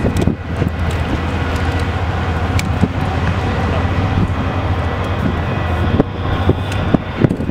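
Amtrak Superliner bilevel passenger cars rolling past: a steady rumble of steel wheels on the rails with a low hum underneath and occasional sharp clicks.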